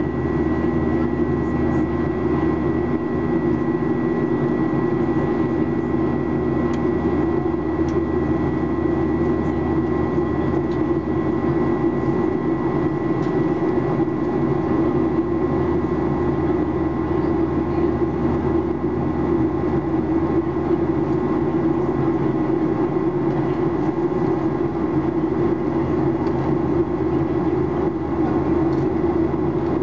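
Steady in-flight cabin drone of a Boeing 737-800 heard from a window seat over the wing: CFM56-7B engine and airflow noise with a thin, steady high whine.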